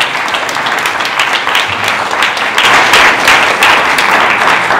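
Audience applauding, swelling to its loudest in the second half.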